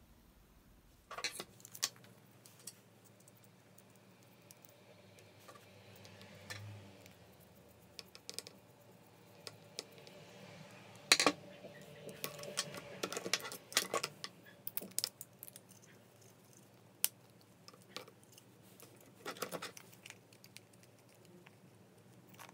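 Small metal and plastic parts of a disassembled cordless impact driver being handled and fitted into its plastic housing: scattered clicks, taps and light rattles, with a sharper knock about halfway through.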